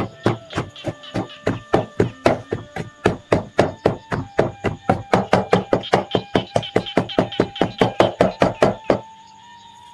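Wooden pestle pounding garlic cloves and red chillies in a wooden mortar: a steady run of knocks, about four a second, that stops near the end.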